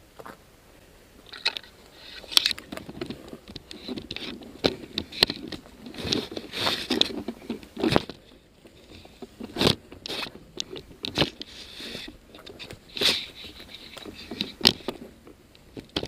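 Irregular crunching and scraping of footsteps and gear brushing through dry undergrowth, with several sharp cracks scattered through it.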